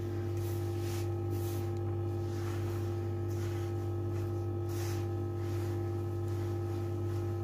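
Hands rubbing and kneading a crumbly sellou mixture in a wide dish, giving soft, irregular rustling strokes, over a steady low hum.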